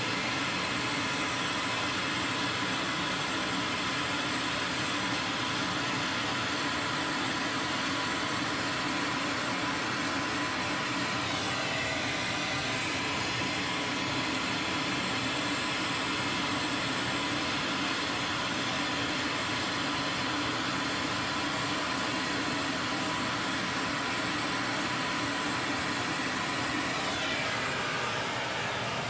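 Oxy-acetylene powder spray-welding torch burning with a steady, loud rushing hiss as it sprays metal powder onto a shaft. The sound eases slightly near the end.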